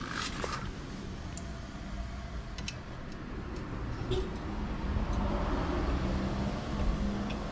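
A few light metallic clicks as the rear brake pedal of a Honda CT125 Hunter Cub is handled at its pivot, over a steady low rumble.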